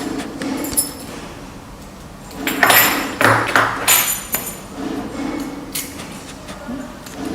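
Metal lock cylinders and keys clinking and knocking as they are handled and set down, with short ringing pings. There is a louder scraping, rustling stretch around the middle.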